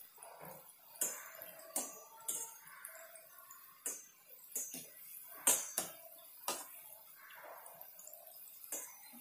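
Gulab jamun balls deep-frying in hot oil: a faint sizzle broken by about ten sharp, irregular pops and clicks, while a wire-mesh skimmer stirs them in the steel pan.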